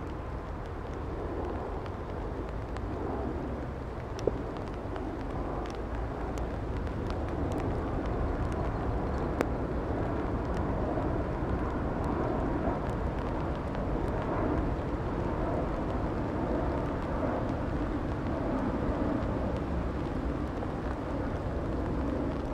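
Steady distant engine rumble, growing a little louder about a third of the way in, with a sharp tick about four seconds in.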